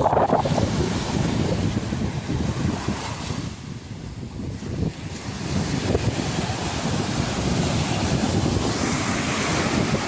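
Sea waves washing onto a beach, a steady rushing surf that eases off midway and swells again, with wind buffeting the microphone.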